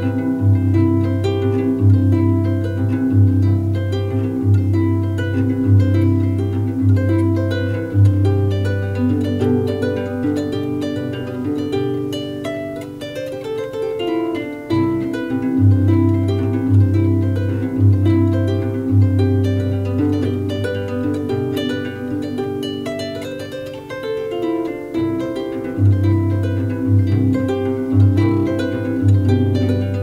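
Carbon fiber kora, a homemade West African harp, plucked in a running melody over a repeating deep bass figure. The bass notes drop out twice for several seconds while the upper strings carry on.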